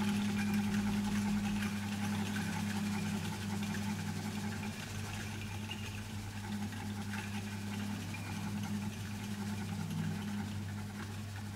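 A piano, double bass and drum kit trio playing a slow improvised piece: a steady low drone with a dense, flickering layer of higher notes and cymbal wash above it.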